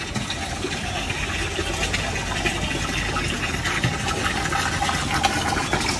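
Water pouring from a stone wall spout into a small basin, a steady splashing that grows a little louder.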